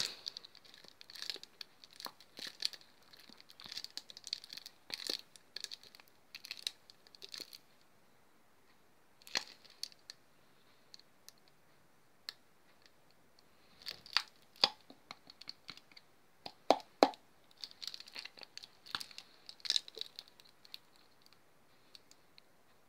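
Plastic glue bottle squeezed and handled by hand while glue is drained out of it: scattered crinkles and clicks of the thin plastic, with short pauses between.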